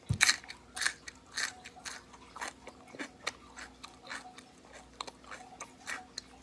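A person chewing a bite of raw cucumber: wet, crisp crunches about twice a second, loudest at the start and growing fainter as the mouthful is chewed down.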